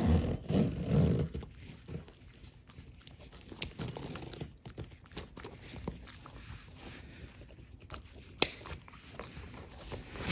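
A 9-week-old Samoyed puppy crunching and chewing small dog treats, with small clicks and crackles as she eats and rustling of the backpack fabric and straps around her. A single sharp click about eight seconds in.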